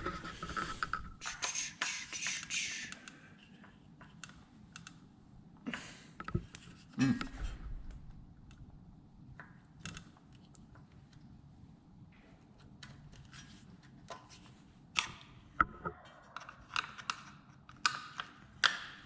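A screwdriver and small parts clicking and tapping against a dirt bike's metal and plastic as screws are worked loose, in scattered taps with pauses between them. A short rustle comes about a second in, and the clicks grow louder and closer together near the end.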